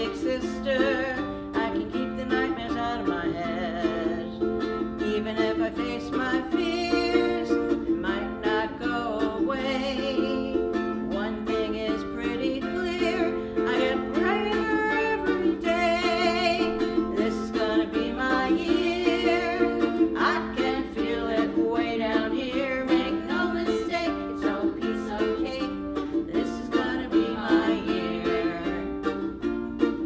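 A woman singing a folk song with a vibrato in her voice, to a strummed ukulele accompaniment.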